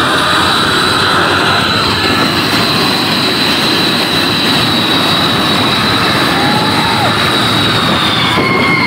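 Large tour bus engine running loudly close by, with a high steady whine over the engine noise that drops to a lower pitch near the end.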